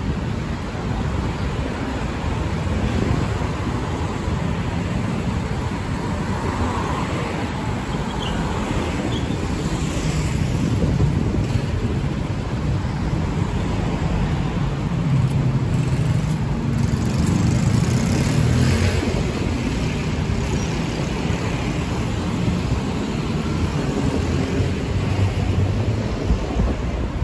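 Steady road traffic noise from vehicles running past on a busy city street, a continuous low rumble that grows a little louder about halfway through.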